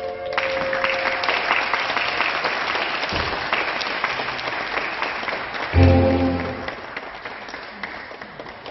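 Audience applauding as the final chord of the music dies away about a second in. About six seconds in, a short loud low chord sounds over the clapping, and the applause thins out near the end.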